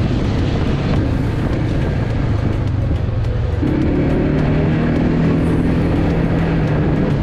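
Quad bike (ATV) engine running steadily, its pitch stepping up about halfway through as it revs.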